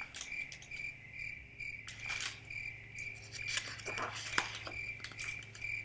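Paper rustling of a picture book's page being turned, with a few soft handling clicks, over a faint high chirping that repeats about three times a second and a steady low hum.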